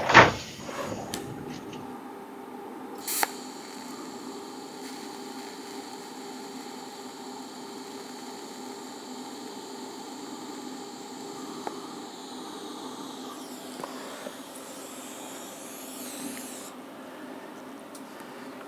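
A brief whoosh at the start, then the steady hiss and buzz of a TIG welding arc tack-welding steel panels, with a sharp click about three seconds in; the higher hiss cuts off about two seconds before the end.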